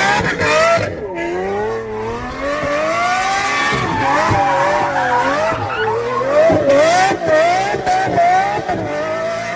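A Lamborghini's engine revs up and down over and over as the car spins donuts. The tyres skid and squeal throughout the burnout.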